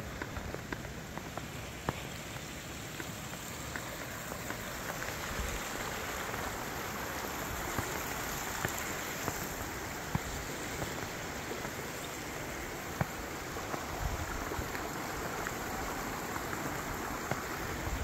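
Mountain stream flowing over rocks: a steady rush of water that grows a little louder after about four seconds, with a few light clicks scattered through it.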